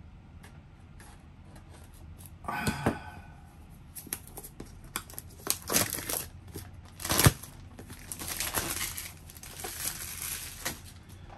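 A small camera retail box being opened by hand, with plastic wrap crinkling and tearing and the packaging rustling. It starts about two and a half seconds in, carries on in irregular bursts with scattered clicks, and the loudest, sharpest click comes about seven seconds in.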